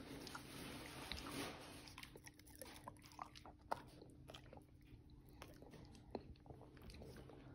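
Belgian Malinois chewing a tangerine: faint, irregular wet smacks and clicks of its jaws.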